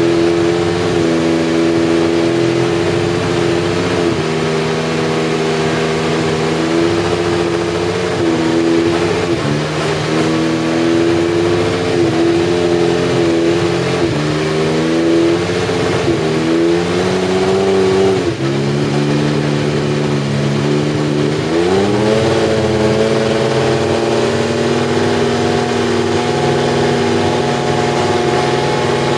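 McLaren Honda MP4/4's 1.5-litre turbocharged V6 (Honda RA168E) running at a steady pitch with small dips, then dropping sharply about eighteen seconds in and climbing back to a steady higher pitch a few seconds later.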